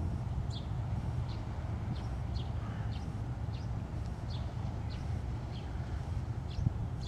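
A small bird chirping over and over, short high falling notes about every half second, over a steady low rumble.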